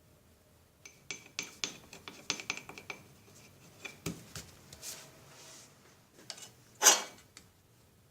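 Small metal parts clinking and tapping against each other as they are handled, with a faint ringing under the first run of taps. A louder short scrape about seven seconds in.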